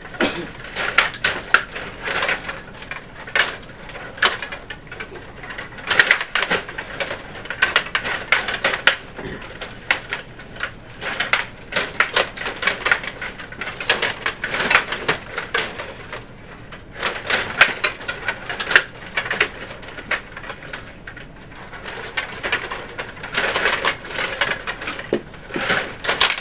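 Stiga rod table hockey game in play: a dense, irregular clatter of sharp clicks and knocks as the rods are pushed, pulled and spun, the plastic players strike the puck and the puck knocks against the boards.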